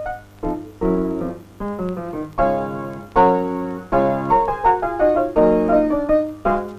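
Solo piano music: chords and melody notes struck and left to ring and fade, growing louder through the middle of the passage.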